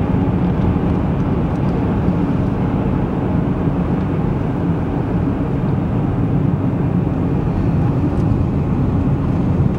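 Steady road noise inside a car's cabin while cruising on a highway: a low rumble of tyres and engine that holds level throughout.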